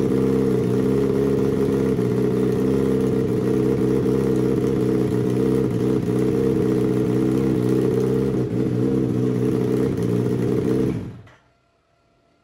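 Turbocharged Suzuki Hayabusa inline-four engine on a run stand idling steadily at about 1,900 rpm, then shut off about eleven seconds in, the sound dying away quickly to near silence.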